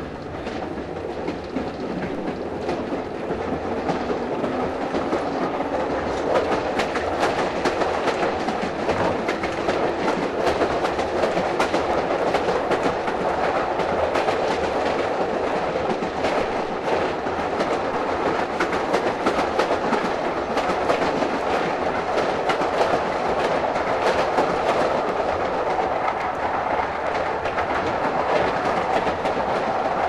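Pacific Electric 'Hollywood' interurban car running along the track, heard from inside just behind the motorman: a steady rumble with a quick, uneven clicking of wheels over rail joints. The sound grows louder over the first several seconds, then holds steady.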